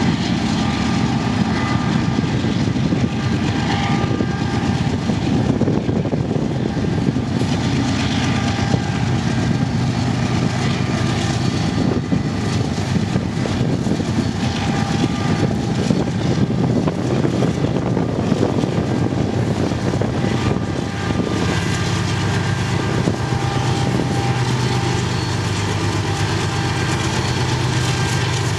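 Union Pacific diesel locomotives hauling a coal train across a steel railway bridge, their engines running with a steady loud drone as the lead units pass close by.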